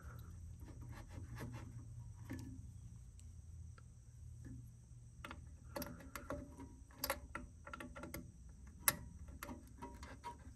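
Scattered faint clicks and taps of small 12AU7 vacuum tubes being handled and pushed into their sockets on the amplifier board. The clicks come more often in the second half, with one sharper click about nine seconds in.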